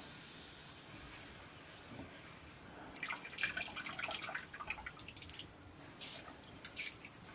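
Faint water splashing and dripping as a hand works in a metal pot of water, with irregular small splashes from about three seconds in.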